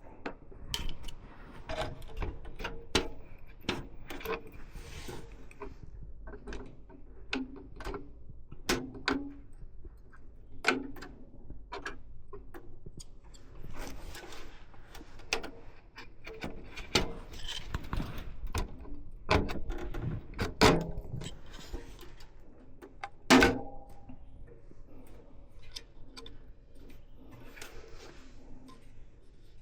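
Handling noise from computer hardware being worked on: irregular clicks, taps and light rubbing, with one louder knock about two-thirds of the way through.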